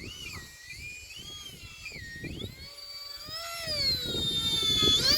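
Twin electric ducted-fan motors of a UMX A-10 radio-controlled jet whining, the pitch sweeping up and down with the throttle. The whine grows louder near the end.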